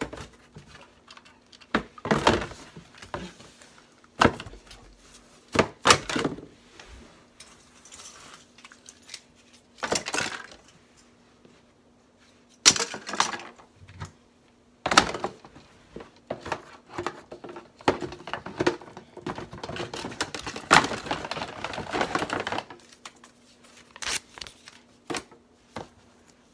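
A label printer, its cables and parts being packed back into a cardboard box: a string of separate knocks, thuds and scrapes of cardboard and plastic, with a longer spell of rustling past the middle. A faint steady hum sits underneath.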